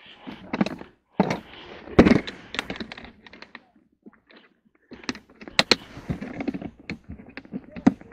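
Ice-fishing gear being handled and packed up, with irregular knocks, clicks and rustling as a plastic fishing box is gripped and moved. The loudest is a single thump about two seconds in.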